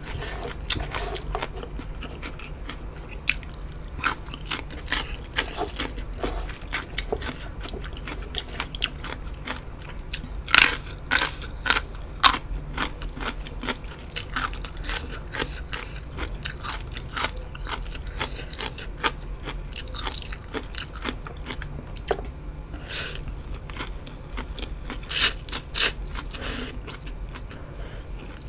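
Close-miked mukbang eating: steady chewing with many crisp, crunchy bites, loudest in a few clusters around the middle and near the end, over a faint steady low hum.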